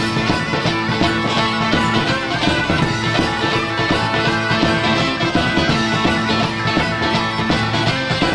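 Medieval rock band playing live: bagpipes over a steady drone, with guitar and drums keeping a regular beat.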